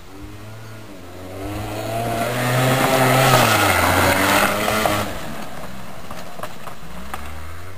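A motor vehicle's engine passing by: its note grows louder and higher from about a second in, peaks, then drops in pitch as it goes past and runs on as a steadier, quieter hum.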